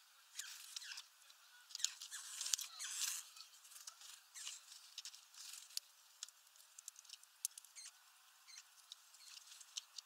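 Eurasian bullfinch landing on a snowy bird feeder and pecking at seeds: a run of sharp clicks, taps and rustles, busiest around two to three seconds in, then sparser.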